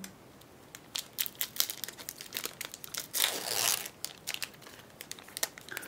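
Foil Pokémon TCG booster pack crinkling and crackling in the hands as it is torn open, with a denser tearing rustle about three seconds in.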